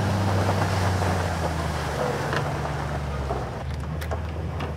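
A motor vehicle's engine running steadily, its note shifting slightly a couple of times, with a few light clicks near the end.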